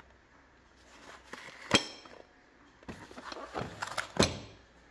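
Metal clanks and knocks: two sharp metallic strikes, the first ringing briefly about two seconds in and the second near the end, with a few lighter knocks between them.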